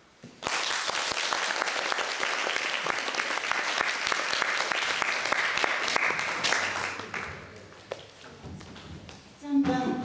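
Audience applauding, starting about half a second in and dying away over the last few seconds.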